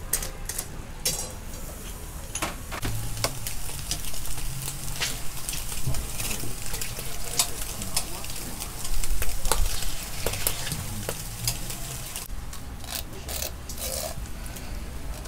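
Eel sizzling as it cooks, with many scattered sharp clicks and taps of kitchen tools throughout.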